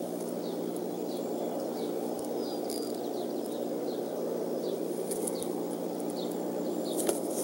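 A small bird chirping again and again in the background, short falling chirps about twice a second, over a steady low rushing noise with a faint hum from the eagle nest camera's microphone.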